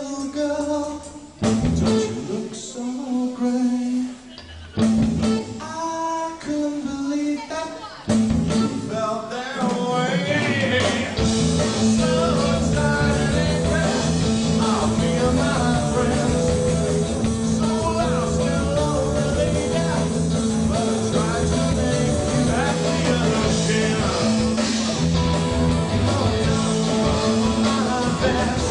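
Rock song with a singer and guitar: sparse sung phrases with gaps between them, then about eight seconds in the music fills out and gets louder and stays steady.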